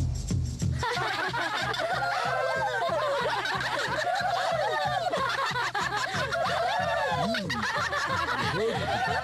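Many cartoon voices whooping and laughing together in a festive chorus, over a steady low drum beat.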